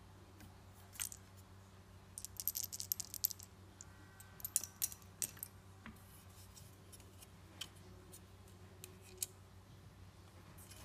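Small plastic parts of a PlayStation controller clicking and rattling as the face buttons are pushed out of the shell and handled: a quick run of light clicks about two seconds in, a few more sharp clicks around four to five seconds, then scattered single ticks.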